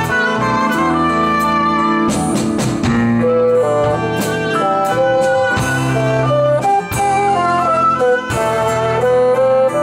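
Live instrumental progressive rock band playing: keyboard, acoustic guitar and electric bass guitar under a melodic lead of held notes.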